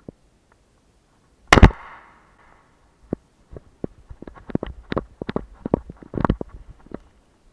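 A single shotgun shot, loud and sudden, about a second and a half in, with a short echo trailing after it. From about three and a half seconds in, irregular rustling and snapping of footsteps pushing through dry undergrowth.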